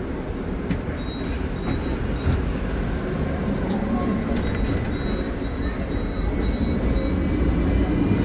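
Hong Kong double-decker electric tram running on its rails: a steady rumble of the wheels on the track, with a thin high whine held through most of the stretch.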